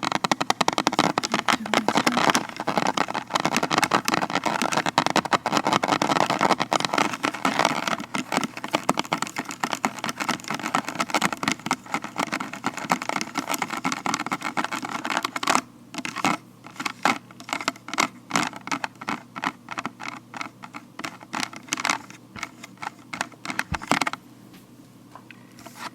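Vinyl-latex gloved fingertips tapping and scratching in a fast, dense patter for about the first fifteen seconds, then slower, separate taps that stop near the end.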